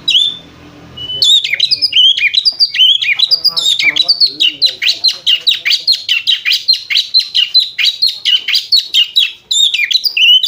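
Oriental magpie-robin (kacer) giving a fast, continuous run of high chirping notes, the rapid chatter called ngriwik that sounds like a lovebird. It starts about a second in, breaks off briefly near the end, then resumes.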